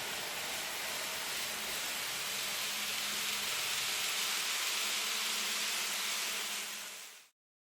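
N gauge model train running on the layout's track: a steady hiss of wheels on rail with a faint low motor hum that comes and goes. It fades and cuts off about seven seconds in.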